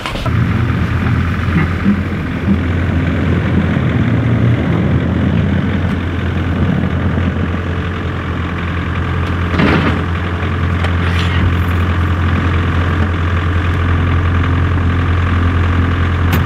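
Truck engine idling with a steady low hum that comes in suddenly at the start, with a brief knock about ten seconds in.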